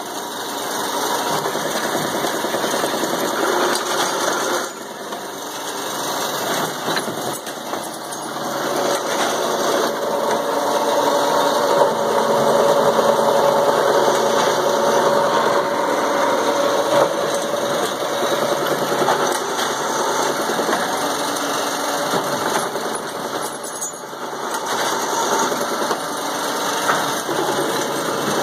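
Eppler tri-spindle paper core cutter running automatically, cutting paper tubes into cores: a steady mechanical din, dipping briefly about five seconds in, with a steady hum standing out through the middle.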